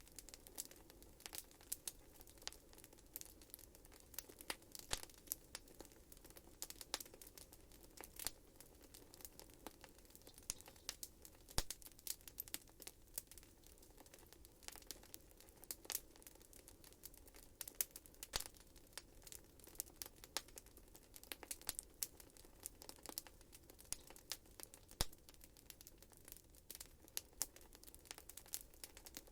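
Wood fire in a fireplace crackling: irregular sharp pops and snaps, several a second, over a faint steady hiss.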